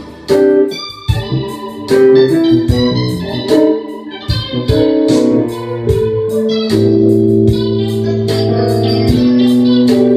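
Two electronic keyboards, a Korg Kronos and a Korg SV-1 stage piano, improvising a groove together. Short, rhythmic chord stabs give way about six seconds in to long held chords over a steady bass note.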